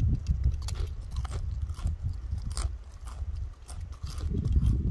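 Golden-mantled ground squirrel crunching a potato chip: about six sharp, irregular crackles over a low, uneven rumble on the microphone.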